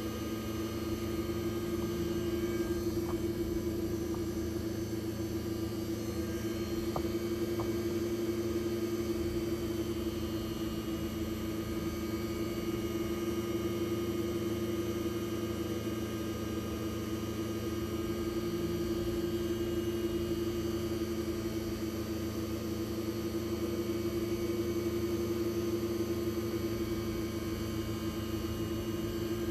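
Spindle of a Hardinge VMC-600 vertical machining centre running steadily at about 8,000 rpm: a constant machine hum with a steady tone.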